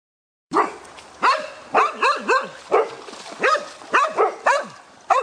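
A dog barking repeatedly, about two sharp barks a second, some coming in quick pairs, each dropping in pitch. The barking starts abruptly about half a second in.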